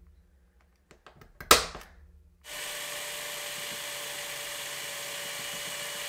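A spring-loaded automatic centre punch snaps once with a sharp click about a second and a half in. About a second later a small electric drill starts and runs steadily with an even whine, boring a pilot hole into a die-cast metal toy car part.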